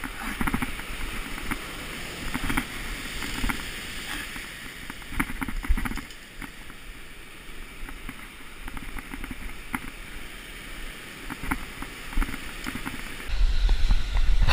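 Surf breaking on rocks, with wind on the microphone and scattered short clicks and knocks. The low rumble gets louder about 13 seconds in.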